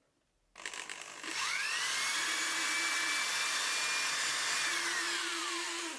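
Bench drill press motor starting up, its whine rising in pitch over about a second, running steadily for a few seconds, then switched off and winding down with a falling whine near the end.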